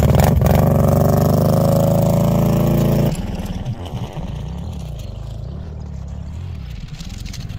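Kawasaki ATV engine revving up close as it pulls away towing a two-row planter, its pitch rising slightly for about three seconds. It then cuts off abruptly to the same four-wheeler running more quietly at a distance across the field.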